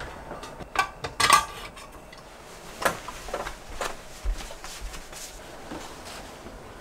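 Metal pot lids and pans clinking and knocking against one another and a stainless-steel pot-lid rack as they are slotted in. A few sharp clinks, the loudest about a second in, then lighter scattered knocks.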